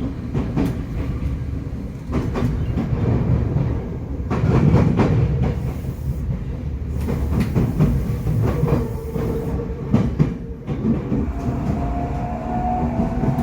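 Running sound inside a Tokyo Metro 8000 series motor car: a steady low rumble of wheels on rail with repeated clacks over rail joints. A whining tone from the traction motor and gearing comes in during the second half.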